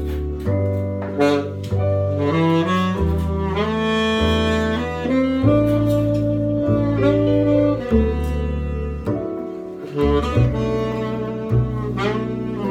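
Live music in a jazz style: an upright double bass playing a low line of held notes under a higher melody line, with slides between some notes.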